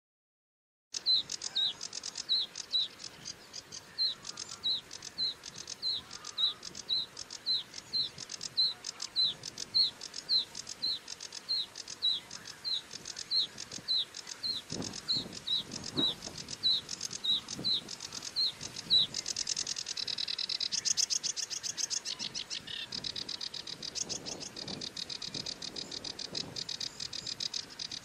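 Sedge warbler singing, starting about a second in: a long run of identical short, down-slurred notes, about one and a half a second, which about two-thirds of the way through breaks into a fast, dense chattering run.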